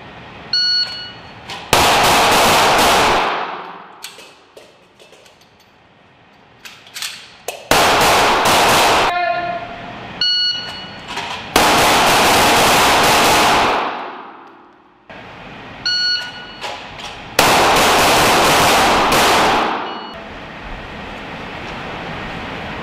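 M17 9 mm pistol fired in four strings of rapid shots, each string lasting one to three seconds, with the shots running together in the echo of an indoor firing range.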